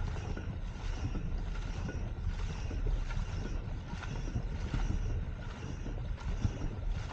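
Crew's paddles striking and pulling through the water in an even rhythm, about two strokes a second, over wind rumble on the microphone.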